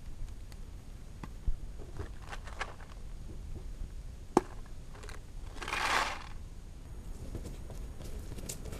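Paintball marker being assembled by hand: scattered clicks, knocks and scrapes of plastic and metal parts fitting together, with a sharp click about four and a half seconds in and a short rushing burst of under a second around six seconds.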